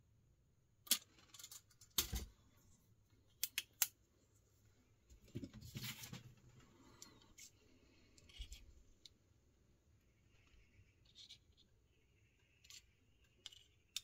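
Kershaw 2032 Esteem slipjoint pocket knife being worked open and shut, its blade snapping against the double detent with sharp metallic clicks. A few loud clicks come in the first four seconds, then a stretch of scraping handling noise, then softer clicks.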